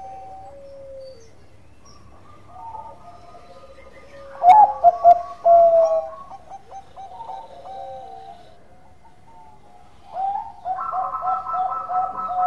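Zebra dove of the Bangkok song-dove strain (perkutut Bangkok) cooing: several phrases of quick, rolling coo notes, the loudest about four and a half seconds in and another starting near the end.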